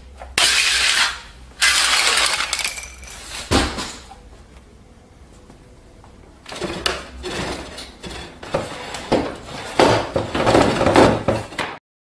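Household objects clattering and clinking with a glassy ring. Two loud rattling bursts of about a second each come first, then a single sharp knock, and after a quiet stretch a run of irregular clatters and knocks that cuts off abruptly near the end.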